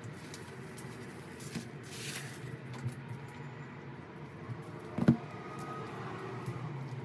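Handling noises from album packaging being moved about: small clicks, a brief rustle about two seconds in and a sharp knock about five seconds in, over a steady low hum.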